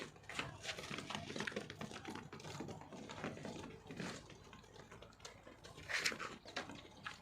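Beetal goats' hooves tapping and shuffling on a hard floor: a run of irregular light clicks, with one louder scuff about six seconds in.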